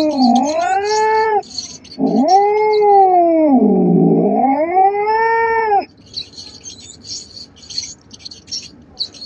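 Domestic cat caterwauling: two long yowls, the second about four seconds long, its pitch sinking low in the middle and rising again before it breaks off. After that only a fainter, rapid high-pitched chirping remains.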